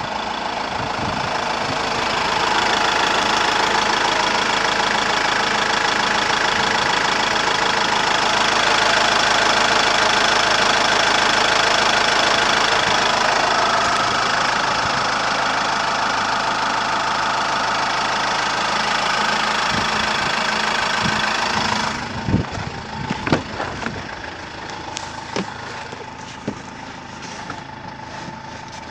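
Iveco Daily's 2.3-litre turbo-diesel idling steadily, heard close-up in the open engine bay. About 22 seconds in it drops to a quieter, muffled idle heard from inside the cab, with several knocks and clicks.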